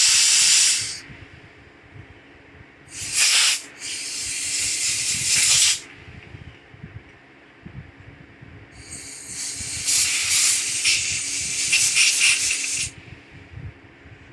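Pressurised spray hissing in four bursts, the last and longest lasting about four seconds.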